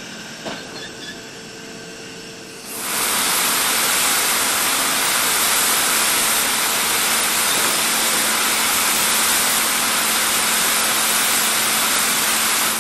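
Engine-plant machinery noise with a single click. About three seconds in, a loud, steady hiss starts suddenly, holds level, and cuts off at the end.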